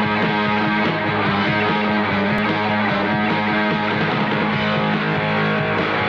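Punk rock song playing loudly: electric guitar chords over bass and drums.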